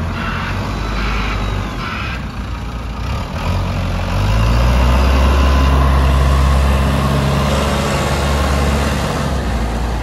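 JCB 2CX backhoe loader's diesel engine running as the machine drives. It grows louder and deeper about four seconds in, then eases slightly near seven seconds.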